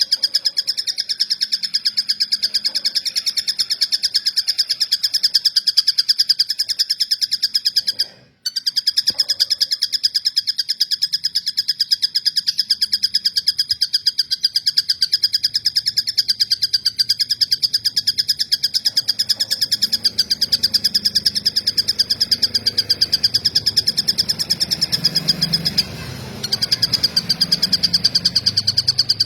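Tengkek buto kingfisher singing its 'cililin' song: a continuous rapid run of high, evenly repeated chirping notes, with a brief break about eight seconds in.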